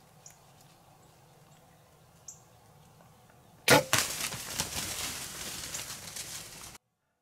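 Bow shot at a feeding doe: a sharp crack of the string release and the arrow striking, then the startled deer scattering, hooves and brush crashing for about three seconds before it cuts off suddenly. A few faint bird chirps come before the shot.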